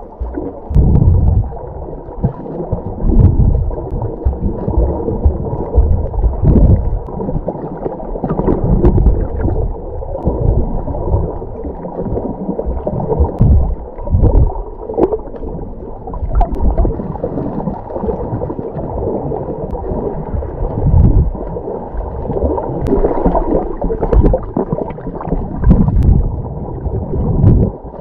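Muffled underwater water noise from a submerged camera while snorkeling: low, irregular surging and sloshing with scattered faint clicks.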